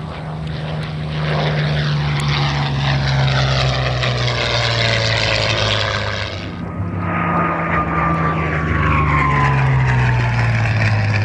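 Piston-engined, propeller-driven World War II fighter flying past at full power. Its drone and propeller whine drop in pitch as it goes by, twice: a second pass starts abruptly about halfway through.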